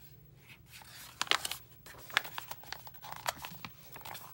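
Paper rustling and crinkling as a picture-book page is turned, heard as a string of short, irregular crackles.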